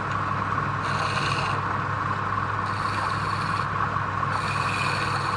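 Wood lathe motor running steadily while a turning tool scrapes against the spinning wood in three passes of about a second each.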